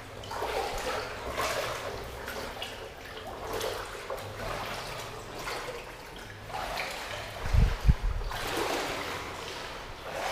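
Floodwater sloshing and splashing in repeated surges, one every second or two, as someone wades through it. Two dull low thumps come about three-quarters of the way through.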